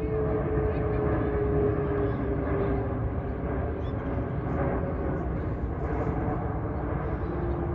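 Jet aircraft engine noise: a steady rumble with a tone that slowly drops in pitch as the plane passes.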